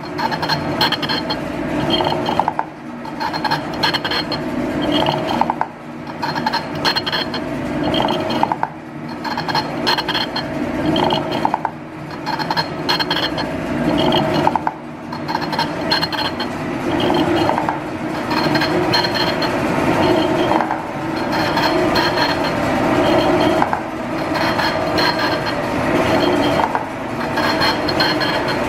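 Large 32-inch metal shaper planing the top of a cast-iron cylinder head. The cutting tool scrapes across the casting and the machine clatters and clinks in a cycle, with a brief lull about every three seconds as the ram strokes back and forth.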